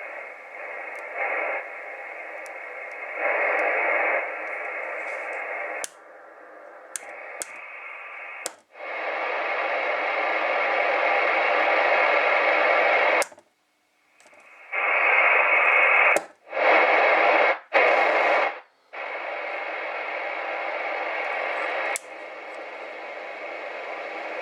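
Ranger AR3500 10-metre transceiver's speaker hissing with receiver static. The static jumps in level and cuts out abruptly several times, with sharp clicks at the changes. There is no power hum in it.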